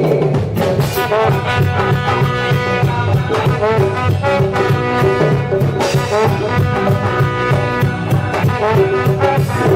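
Instrumental break of a Latin dance song: a brass section with trombones and trumpets playing melodic phrases over drums and a steady beat.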